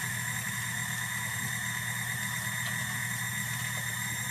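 KitchenAid stand mixer's motor running steadily, driving a plastic food grinder attachment as it grinds meat: an even hum that does not change.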